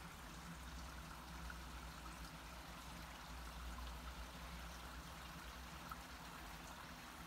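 Faint, steady running water of a shallow stone-lined holy-well stream, over a low steady rumble.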